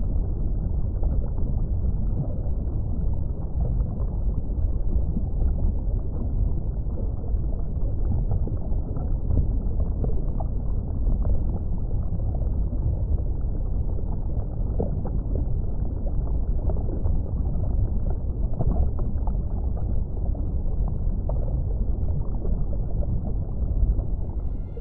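Steady, muffled, deep rush of water with small scattered pops: underwater aquarium ambience.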